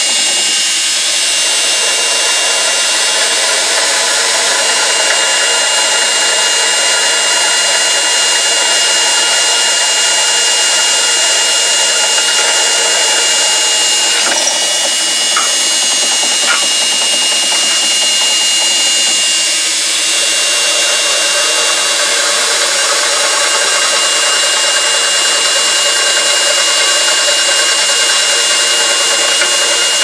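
A drill press driven by a brushed washing-machine motor, running at raised speed and drilling into rusty steel plate. The motor and the cutting make a steady, even sound, with a high tone running through it.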